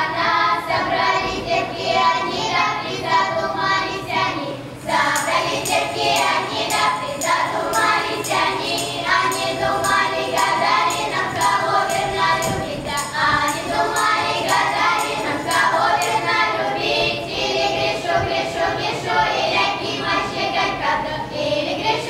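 Children's folk ensemble singing a Cossack song together, with a tambourine's jingles beating time from about five seconds in.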